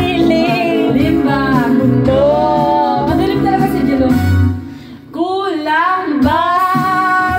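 A woman singing into a karaoke microphone over a backing track, holding long notes with a slight waver. The sound dips briefly about five seconds in, then the singing carries on.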